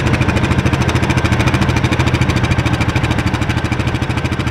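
Polaris RZR side-by-side's engine idling steadily with an even beat.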